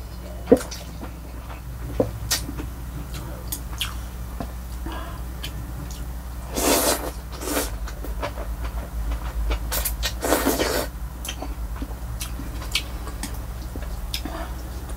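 A person slurping thin wheat noodles in broth close to the microphone, with wet mouth clicks and chewing between slurps. There are two long, loud slurps about halfway through and another about two-thirds through, over a steady low hum.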